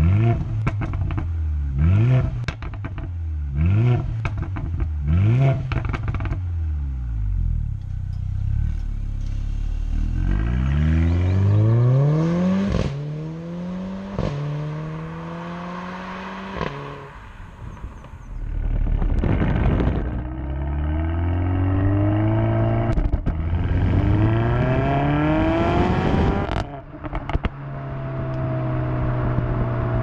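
Mercedes-AMG A45's turbocharged 2.0-litre four-cylinder through its exhaust: a run of sharp free-revs, about one a second, with crackles between them. Then comes hard acceleration, rising in pitch through several upshifts with cracks at the shifts, and a steady drone near the end.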